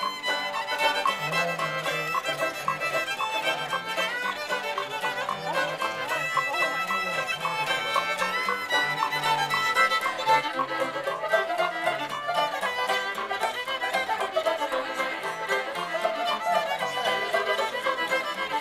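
Bluegrass-style fiddle music playing without a break.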